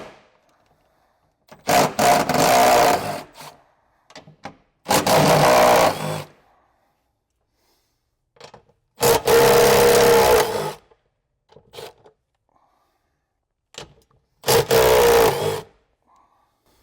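A cordless power tool with a 13 mm socket spinning off four nuts, one short run each, with small clicks of handling between the runs. The nuts hold the cover over the battery.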